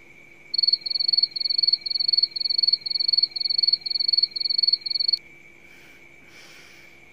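Cricket chirping: a loud, even run of high chirps, about two and a half a second, that cuts off abruptly about five seconds in.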